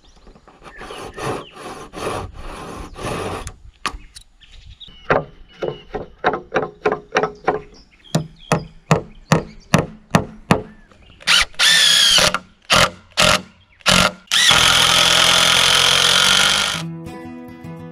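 A handsaw cutting into a wooden beam with quick strokes, then a steady run of hammer blows on a chisel, about two a second, chopping out the cut. A cordless drill then runs in two bursts, with a couple more hammer taps between them, and soft guitar music comes in near the end.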